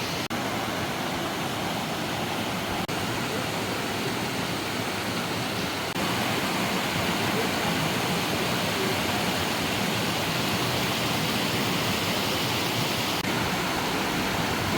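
Steady rush of a waterfall, with the water noise jumping slightly louder about six seconds in.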